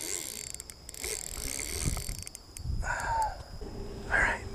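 Spinning reel being worked against a large, hard-pulling carp: scattered clicks from the reel, with handling rustle.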